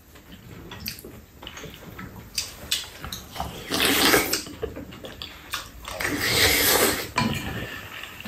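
Slurping of chicken rice-cake soup (tteokguk) off a spoon, in two long slurps about four and six seconds in, with small clicks of spoons against bowls between them.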